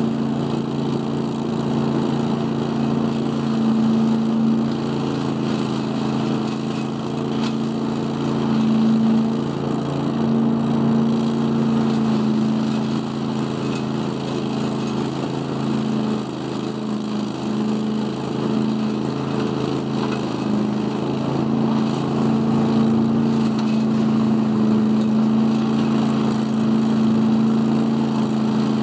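Scag Giant Vac leaf vacuum's 18 hp Briggs & Stratton Vanguard V-twin engine running steadily at working speed, its fan drawing leaves up through the large intake hose.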